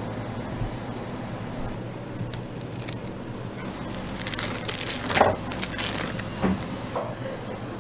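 Gloved hands handling processed cheese slices and kimchi: crinkling, rustling and small clicks, busiest about four to six seconds in, over a steady low hum.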